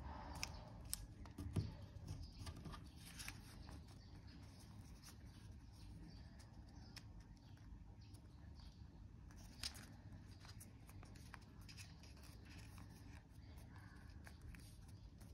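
A sheet of origami paper being folded and creased by hand: faint rustling and crinkling with scattered sharp crackles, most frequent in the first few seconds and with one more near the middle.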